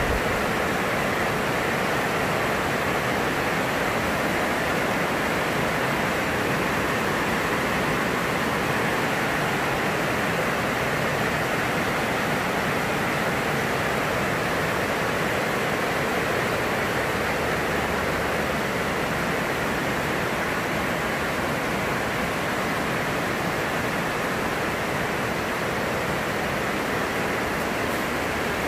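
Very heavy rain falling on a greenhouse roof: a steady, dense hiss with no letup.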